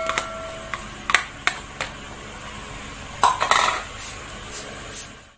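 A spoon clinking and scraping against a pan while the coconut and sugar filling is stirred and tutti frutti is mixed in: a few sharp clinks in the first two seconds, then a short run of scraping knocks past the middle.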